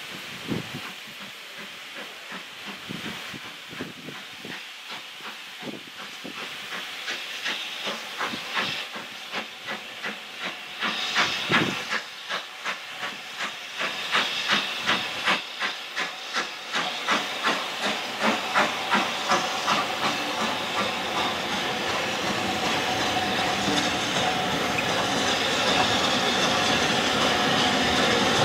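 BR Standard Class 5 4-6-0 steam locomotive No. 73082 'Camelot' working a train, its exhaust beating regularly at about two to three chuffs a second over a steam hiss and growing steadily louder as it approaches. In the last third the separate beats give way to a steady hiss and running rumble that keeps getting louder.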